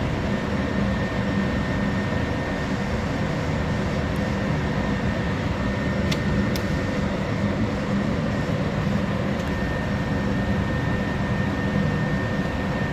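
Steady hum and rush of air from an indoor shooting range's ventilation system, with a thin high tone held throughout. A few faint clicks in the middle; no shots are fired.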